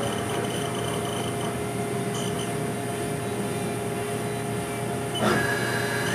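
Haas VF-3 CNC vertical machining center running with a steady hum and whine. About five seconds in there is a short clunk and the whine steps up to a higher pitch.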